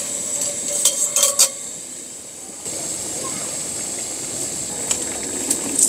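Stainless steel camping cups clink against each other a few times. Then a wok of kimchi ramyeon boils hard, with a steady hiss of steam and bubbling.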